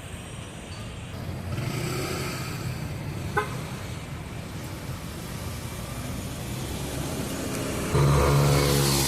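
City street traffic: vehicle engines running and passing, with one short horn toot about a third of the way in. Near the end a louder, steady pitched drone with many overtones starts suddenly.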